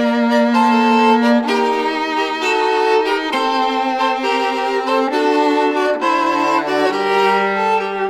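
An ultralight viola and a violin playing a bowed duet, sustained notes moving in two voices. About six seconds in, the viola drops to low held notes beneath the violin.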